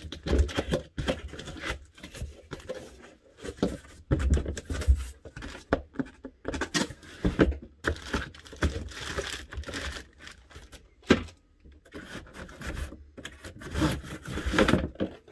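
Cardboard packaging being handled and pulled apart by hand while a box is unpacked: an uneven run of scraping, crinkling and tearing cardboard sounds.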